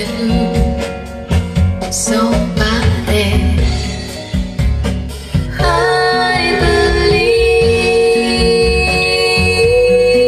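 Recorded music with singing, played through a pair of JBL 240Ti three-way floor-standing loudspeakers driven by valve amplifiers and heard in the room. Sharp rhythmic strikes over a full bass line give way about six seconds in to a long held note.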